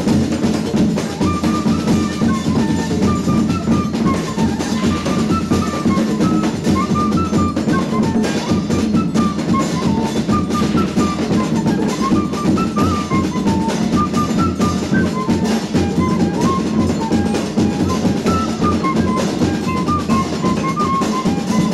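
Folk percussion ensemble playing a dense, steady groove on snare drum, djembe and bass drum, with a pífano (cane fife) playing a high melody of short notes that rises and falls above the drums.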